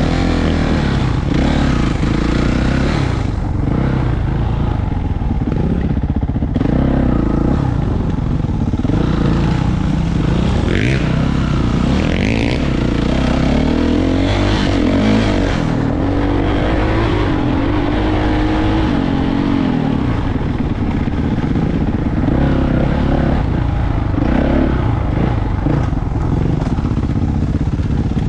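Kawasaki KX450 four-stroke single-cylinder dirt bike engine running close up under the rider, its pitch rising and falling with the throttle as it rides a rough dirt trail.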